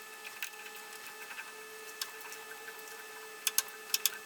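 A tap being worked into a blind hole in steel: a few faint clicks, then a run of sharp clicks, about two or three a second, starting about three and a half seconds in, over a steady hum.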